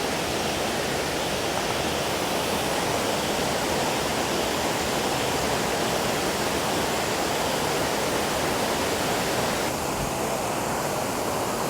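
Creek water rushing steadily over a riffle, a constant even rush.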